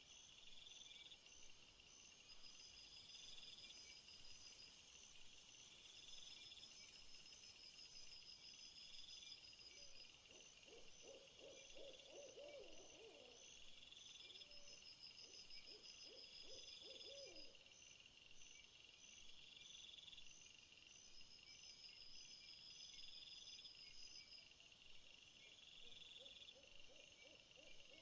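Faint insect chorus: several insects chirping in evenly repeated pulses at different high pitches, with a louder high buzz joining for about five seconds near the start. Low wavering calls come in a little before the middle and again near the end.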